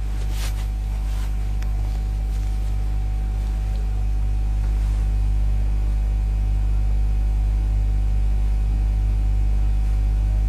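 Steady low hum with a faint hiss, growing slightly louder.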